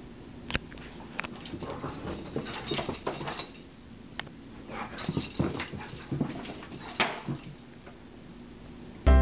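A dog playing with a stuffed plush toy that has a rubber ball in its head: scattered short knocks and scuffles in uneven bursts, with brief dog noises.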